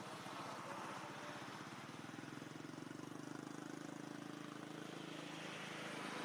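An engine running steadily, its pitched hum growing firmer about two and a half seconds in.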